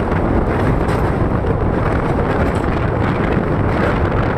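Passenger express train running at speed: a steady rush of wheel and track noise, with wind buffeting the microphone held out at the side of the coach.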